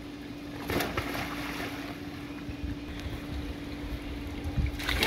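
A steady low mechanical hum under a low wind rumble on the microphone, broken by a brief rush of noise about a second in and another near the end.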